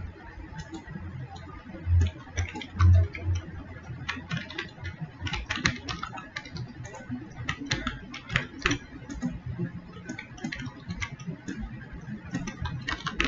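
Typing on a computer keyboard: runs of quick keystroke clicks, with two dull low thumps about two and three seconds in.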